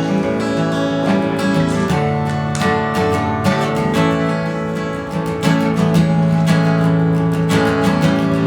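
Acoustic guitar strummed steadily, the instrumental introduction before the singing begins.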